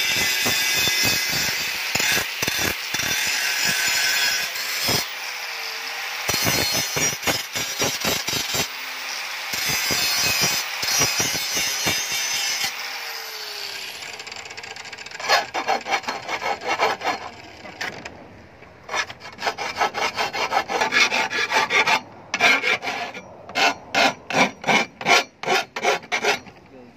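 Angle grinder grinding the edge of a steel spade blade. About halfway through, it gives way to quick back-and-forth rasping strokes of hand filing on the blade, in bunches with short pauses.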